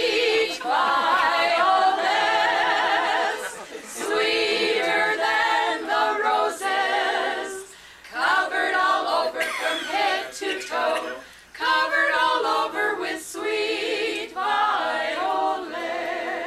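A small group of mostly women's voices, with one man among them, singing a song together a cappella, in sung phrases with wavering vibrato broken by short pauses for breath.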